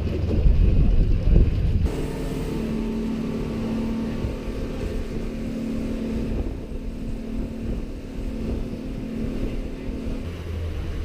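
Boat engine running steadily, a low rumble with a steady hum, with wind on the microphone.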